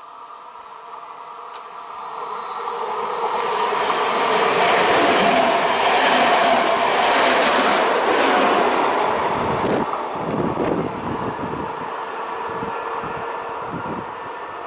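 A České dráhy CityElefant double-deck electric unit passes at speed. Its rushing noise builds to a peak and then falls away, and a series of rhythmic wheel clacks follows near the end as the last cars go by.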